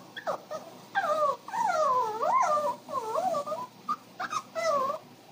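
Pomeranian–Shih Tzu mix dog whining: a string of whimpering cries that slide up and down in pitch, starting about a second in, with a few short yelps around them. The whining is the anxious crying of a dog left alone when her owner has stepped outside.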